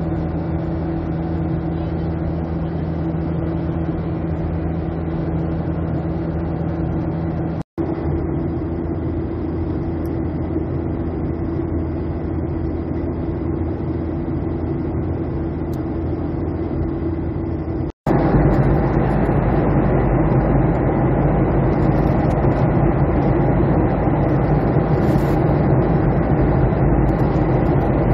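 Steady drone of engine and airflow inside a jet airliner's cabin in cruise, with a low hum under it. It cuts out for an instant twice, and after the second break it is louder with more low rumble.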